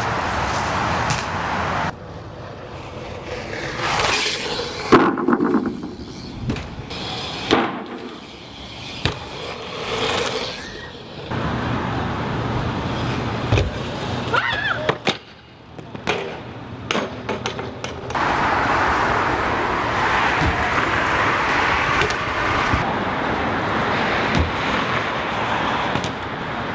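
BMX bike riding on pavement and concrete: tyres rolling, with several sharp knocks of landings and the bike striking edges.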